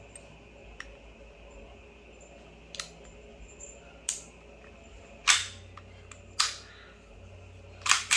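Sharp metallic clacks from a WE T-Rex Hi-Capa 5.1 gas blowback airsoft pistol as its slide and hammer are worked by hand. The pistol has just been fitted with 150% recoil and hammer springs and a stainless hammer protection pad. There are about six separate clacks, growing louder through the middle, with a quick double clack near the end.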